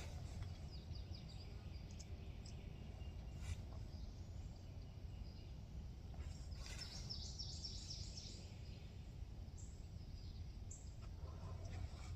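Quiet outdoor ambience: a steady low rumble, with a bird chirping faintly in a quick series about seven seconds in.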